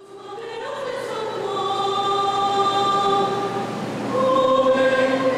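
Mixed choir of men's and women's voices singing long held chords. The sound fades in at the start, and a new, louder chord enters about four seconds in.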